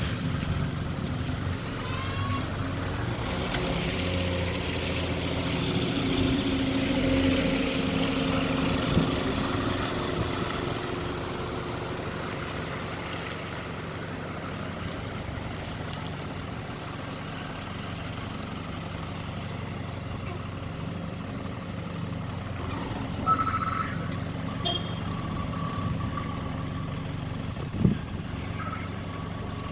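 Bus TE1079 reversing: its engine runs steadily while its unusual reversing warning sounds. A few short knocks come through along the way.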